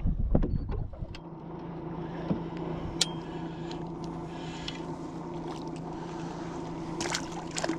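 Wind on the microphone with a few knocks for about the first second, then a boat motor humming steadily, with a few sharp clicks near the end.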